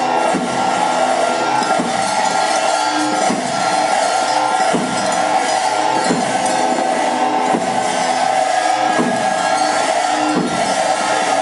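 Cham dance music: slow, even drum and cymbal beats about every second and a half under a steady held wind-instrument tone.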